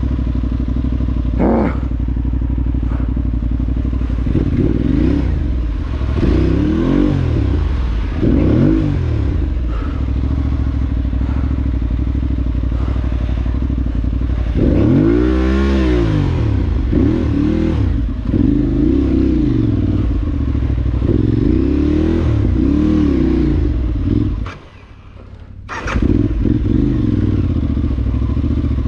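Adventure motorcycle engine on an off-road ride, its revs rising and falling again and again with the throttle. The sound drops away briefly about three-quarters of the way through, then picks up again.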